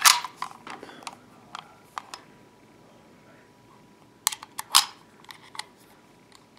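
Metal clicks and light scrapes of a Tanfoglio TA 90 pistol's steel slide, frame and slide stop being handled and fitted together. A sharp click comes right at the start, a few scattered clicks follow, and after a quiet stretch a quick cluster of clicks comes about four to five and a half seconds in.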